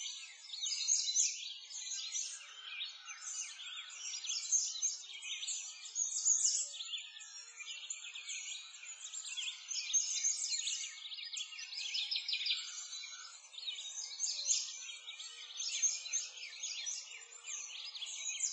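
A dense chorus of many songbirds chirping and trilling without a break, the calls high-pitched and overlapping, with a faint hiss beneath.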